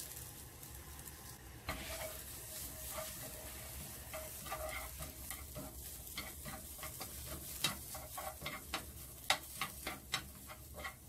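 Shredded preserved radish and ginger dry-frying in a non-stick pan without oil: a faint steady sizzle, with wooden chopsticks clicking and scraping against the pan as they stir, the clicks coming more often toward the end.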